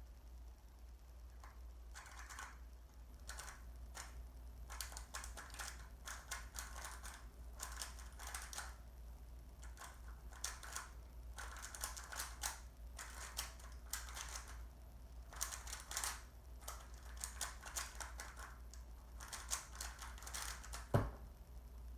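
Rubik's cube being turned fast in a speed-solve: rapid bursts of plastic clicking and clacking from the layers turning, with short pauses between runs of moves. A single louder thump comes near the end, as the solve finishes.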